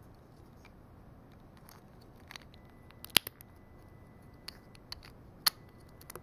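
Plastic Lego bricks and plates clicking as they are handled and pressed together: a run of short sharp clicks, the loudest about three seconds in and another about five and a half seconds in.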